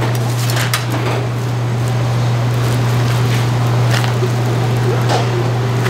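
A loud, steady low hum, with a few light clicks and taps of bamboo skewers being handled on a stainless-steel counter.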